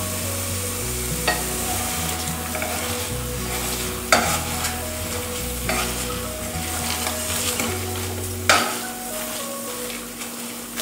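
Potato masher pressing and scraping onion-tomato masala as it fries in a nonstick pan, over a steady sizzle. There are a few sharp knocks of the masher against the pan, the loudest about four and eight and a half seconds in.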